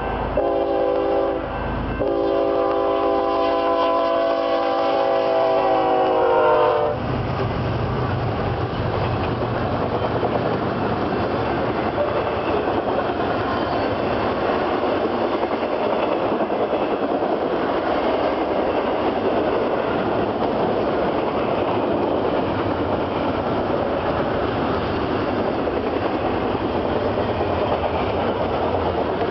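BNSF freight locomotive horn blowing as the train approaches: two short blasts and a long one, its chord sagging in pitch as the locomotives pass and cutting off about seven seconds in. Then the steady rumble and clatter of double-stack intermodal container cars rolling past.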